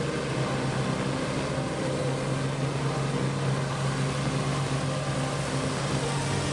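Heavy truck engine running steadily: a constant low drone under a dense rushing noise.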